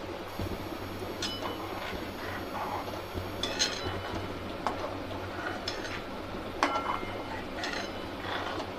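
Steel ladle stirring thin masala gravy in a stainless-steel kadhai, with hot water just added, clinking and scraping against the pan's sides about every second.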